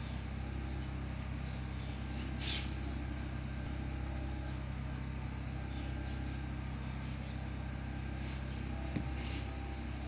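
A steady low mechanical hum, with a couple of brief faint hisses and a small click near the end.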